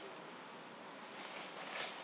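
Outdoor ambience: a steady hiss with a constant high-pitched tone, and a brief swell of noise near the end.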